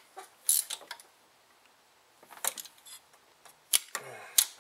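Spark plug socket on a wobble-joint extension clinking as a spark plug is threaded into the cylinder head by hand: a handful of sharp metallic clicks with quiet gaps between.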